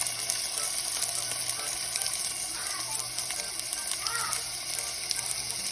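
Food sizzling in a hot frying pan: a steady hiss with small, quick crackles throughout.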